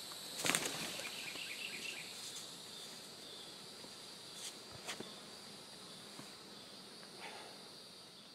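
Summer woodland ambience: a steady high-pitched insect drone, with one sharp knock about half a second in and a few fainter clicks around five seconds. The whole sound gradually fades down.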